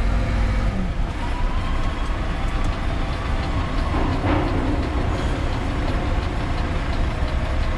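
Concrete mixer truck's diesel engine running, heard from inside the cab as a steady low rumble, with a brief burst of noise about four seconds in.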